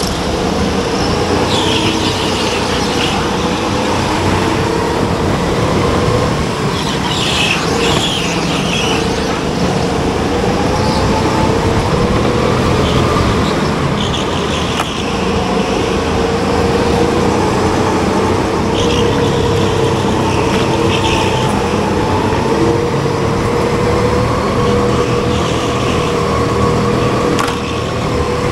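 A go-kart racing around the track, its motor note holding steady and drifting slightly up and down, with short bursts of tyre squeal several times as it corners.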